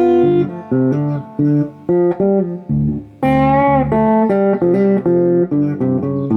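Harley Benton HB35 Plus semi-hollow electric guitar played through a Fender Sidekick Reverb 25 solid-state practice amp, with a little gain, full bass and some amp reverb. It plays a blues lead line of single notes and double-stops, with a string bend up and back down about halfway through.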